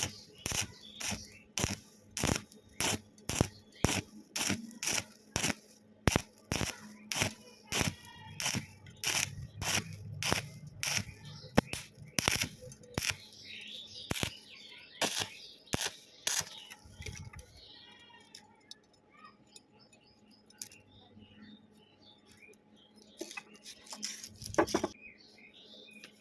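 Hammer striking steel in a steady run of sharp blows, about two a second, stopping about two-thirds of the way through; a few more blows come near the end.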